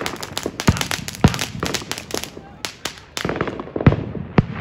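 Fireworks going off: a dense run of rapid crackling pops, broken by several louder bangs and a brief lull a little past halfway.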